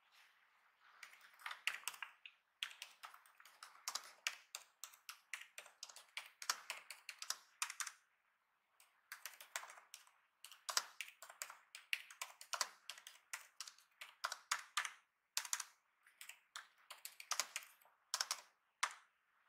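Typing on the Asus TUF FX506 laptop's keyboard: quick runs of key clicks, with a brief pause about eight seconds in.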